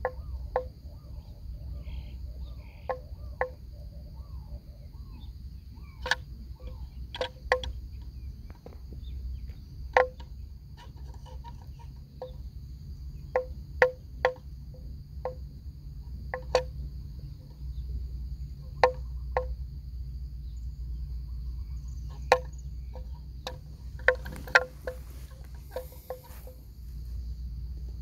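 Bells on grazing water buffaloes clunking irregularly, a hollow knock every second or so, bunching together near the end. A steady high insect drone runs underneath.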